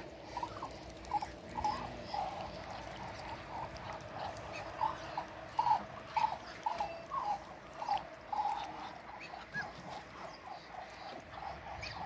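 Muscovy ducks calling: a string of short, repeated calls, roughly two a second and unevenly spaced, over a faint steady hum.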